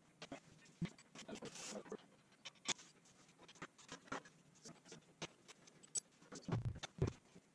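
Faint scattered clicks, taps and scrapes of a person handling tools and moving around a riding mower, with a short scrape about a second and a half in and a few dull thumps near the end.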